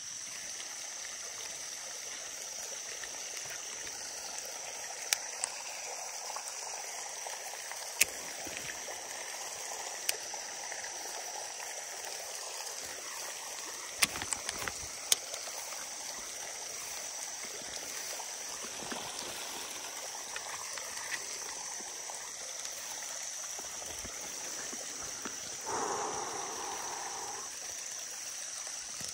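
Steady trickling of running water, with a handful of sharp clicks scattered through it and a brief louder sound near the end.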